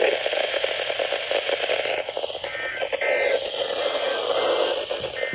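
Weather radio receiver hissing and crackling with static from a weak signal between spoken bulletins, with a few short faint tones around the middle and near the end.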